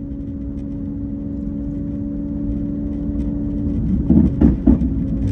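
A road vehicle's engine running at a steady cruising speed, with a constant hum over road rumble. A little after four seconds in come about three short loud sounds.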